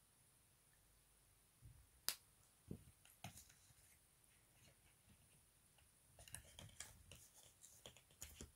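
Handling of a small plastic makeup product: one sharp click about two seconds in, a few more a second later, then a run of light clicks and taps near the end.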